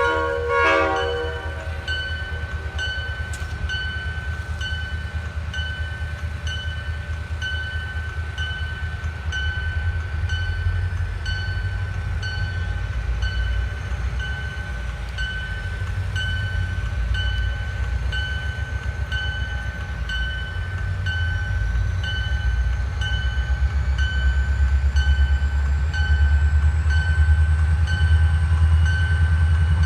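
A diesel train horn gives a short blast. Then a bell rings steadily about once a second over the low rumble of a diesel locomotive, which grows louder toward the end.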